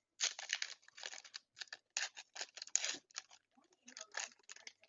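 Foil wrapper of a Pokémon booster pack being opened: a quick run of sharp crinkling and scraping strokes, heaviest in the first half and picking up again near the end.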